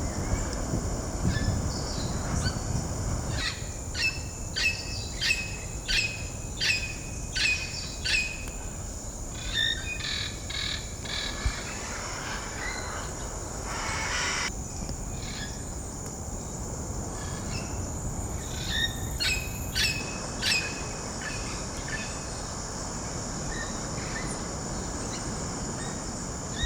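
A bird calling in two bouts of short, sharp repeated notes, about two a second, over a steady high-pitched tone. Low rumbling noise fills the first few seconds.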